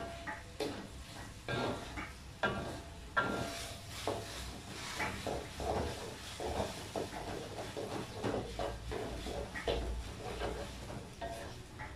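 A spatula scraping and knocking against a wok as sliced okra is stir-fried, in irregular strokes a few a second, with sizzling underneath.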